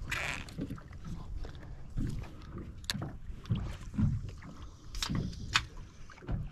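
Low, uneven rumble of wind on the microphone and small waves slapping the hull of a drifting boat, with a few sharp clicks and knocks of fishing tackle being handled, the outboard off.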